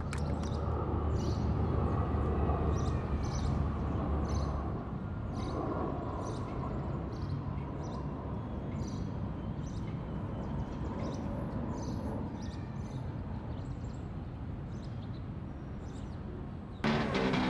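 Outdoor ambience with scattered short bird chirps over a steady low background, with a low hum during the first few seconds. Near the end a motor vehicle engine cuts in abruptly, its pitch rising and falling as it revs.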